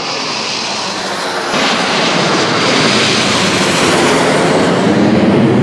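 Jet noise from a diamond of four Kawasaki T-4 jet trainers climbing with smoke on. It is a steady, dense roar that jumps louder about a second and a half in and stays loud as the jets pass over, with a deeper rumble building near the end.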